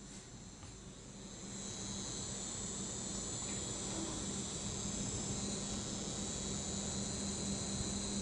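Abnormal high-pitched whine from a newly bought AMD Radeon RX 460 graphics card, heard from outside the PC case. It grows louder about a second and a half in, over a steady low hum.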